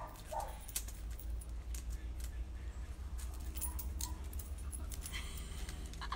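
A dog moving about at close range, with scattered light clicks and metallic jingling over a steady low hum.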